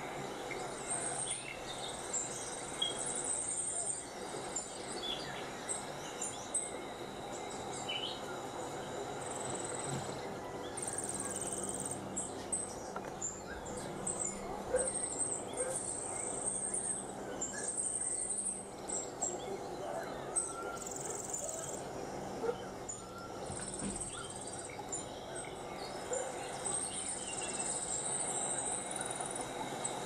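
Insects trilling in repeated short, high-pitched bursts over a steady outdoor background, with scattered bird chirps.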